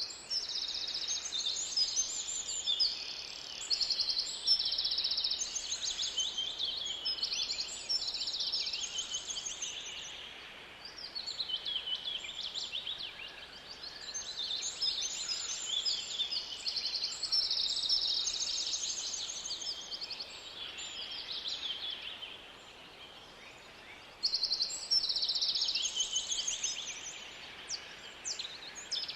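Songbirds singing together, a dense chorus of overlapping high chirps and fast trills.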